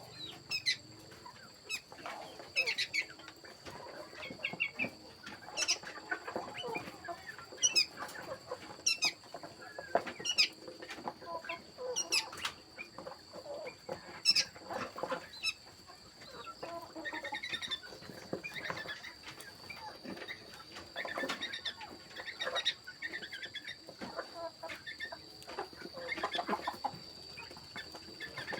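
Chickens clucking and calling in short, irregular bursts, mixed with squeaks and light clicks, over a steady high-pitched tone.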